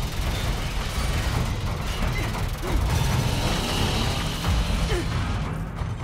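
Film sound effects of alien spheres shredding a warship's steel interior: continuous metallic grinding, tearing and crashing over a heavy low rumble, with a music score underneath. The high hiss drops away briefly near the end.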